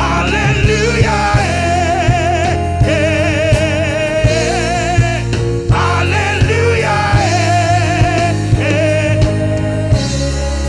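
Gospel praise-and-worship song: a lead voice singing with vibrato over a band with bass and a steady drum beat.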